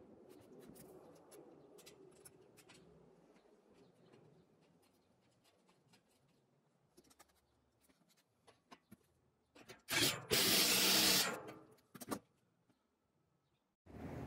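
Faint rubbing and small clicks of hardware being handled on the aluminium angle, then a Milwaukee cordless power tool runs loudly for about a second and a half, driving a carriage bolt down onto the mount's base plate, with a short second burst just after it.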